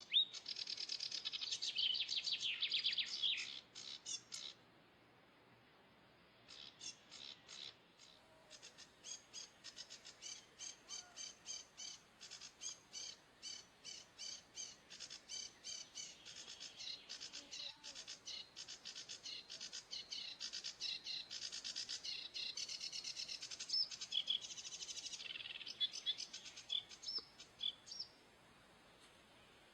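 Small songbirds chirping: a dense burst of twittering for the first few seconds, a short pause, then a long run of quick, high chirps repeated two or three times a second, stopping shortly before the end.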